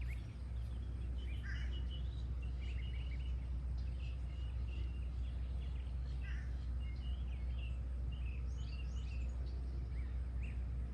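Several birds chirping and singing in short, scattered phrases over a steady low rumble.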